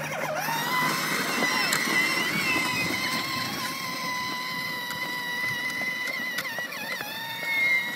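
Battery-powered Barbie Jeep ride-on toy car driving: its small electric motor and gearbox give a steady whine, over the rumble of its hard plastic wheels rolling on asphalt.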